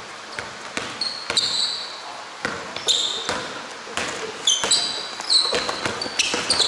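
Indoor basketball play: a basketball bouncing on the court in a string of sharp knocks, mixed with short high squeaks of sneakers on the floor, the squeaks coming thickest in the second half.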